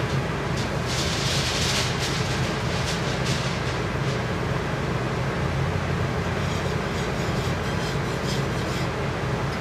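Steady low mechanical hum over a constant noisy background, with a short hiss about a second in.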